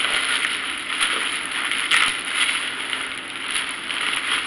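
Plastic oven bag crinkling and rustling as hands twist and knot it closed.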